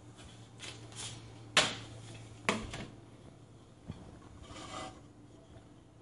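Tortillas being laid over plastic microwave taco shell forms: soft rubbing and scraping, with two sharp knocks about one and a half and two and a half seconds in.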